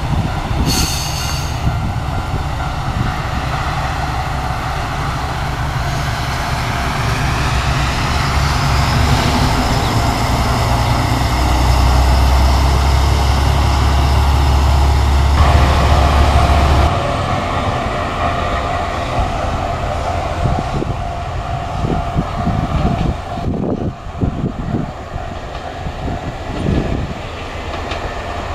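Moka-14 diesel railcar pulling away from a station: its diesel engine rumbles deeply and builds for about seventeen seconds, then drops away suddenly, and the train sound fades as it moves off down the track. A short high-pitched tone sounds about a second in.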